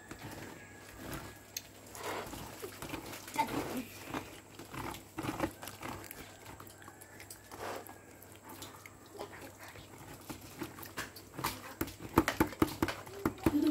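Irregular scrapes and soft knocks of a plastic scoop and a wooden spoon rubbing warm green rice-flour dough through a woven bamboo sieve basket.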